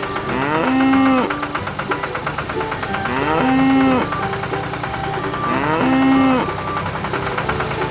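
A cow mooing three times, each moo about a second long, rising in pitch and then held, over light background music.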